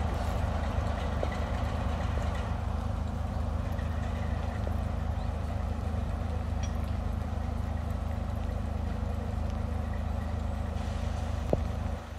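Diesel locomotive engine idling steadily with a deep, even hum. A single sharp click or clank sounds near the end.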